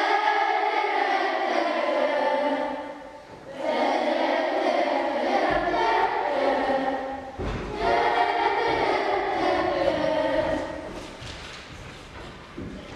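A class of primary-school children singing together as a choir, in three long phrases with short breaks between them, fading away near the end.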